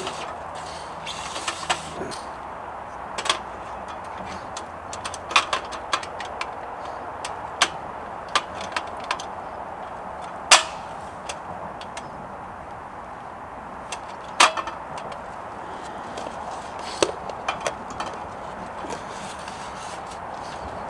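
Handling of camp-cooking gear: scattered clicks, taps and knocks as a frying pan, a plastic food container and a portable gas camp stove are moved about on a folding table, over a steady background hiss. The two loudest knocks come about halfway through and a few seconds later.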